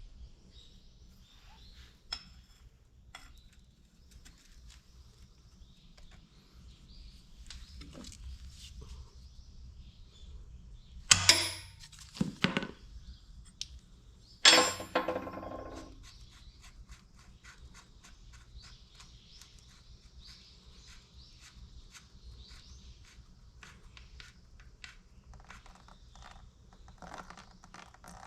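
Metal tools and engine parts being handled during engine disassembly: scattered clicks and light taps, two loud metallic clanks that ring briefly, about eleven and fourteen and a half seconds in, and a run of quick small ticks in the second half.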